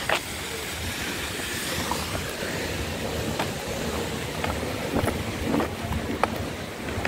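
Steady outdoor noise of wind buffeting a phone microphone, with a low rumble and scattered short clicks.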